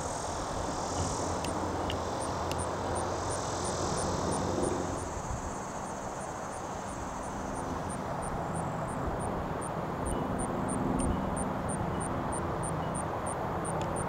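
Outdoor ambience of a steady low rumble, with an insect chirping in short high-pitched pulses about three to four times a second, starting about two seconds in.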